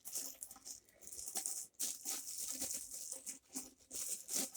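Plastic packaging crinkling and rustling in irregular bursts as vacuum cleaner parts are unwrapped and handled.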